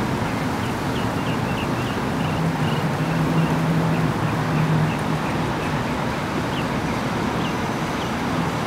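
Tugboat diesel engines droning low and steady as the tugs pass, loudest a few seconds in, over a wash of wind and water noise. Short high chirps repeat throughout.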